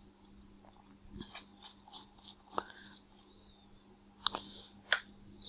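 Small screwdriver working the screws of a Nikkor 28-70 lens's metal bayonet mount: faint irregular scraping ticks and clicks, with two sharper clicks near the end.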